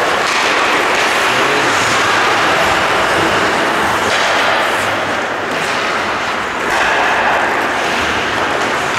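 Steady, loud wash of noise from an ice hockey game in an ice hall, dipping briefly a little past halfway.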